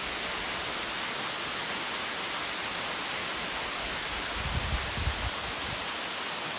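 Steady rushing noise of a waterfall, with low rumbling gusts on the microphone from about four seconds in.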